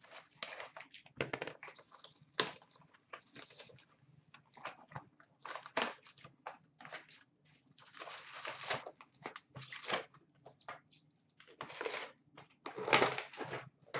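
Plastic wrap and cardboard of a sealed 2016-17 Upper Deck SP Authentic hockey card box being torn open and handled: irregular crinkling, crackling and rustling, thickest about eight seconds in and again near the end.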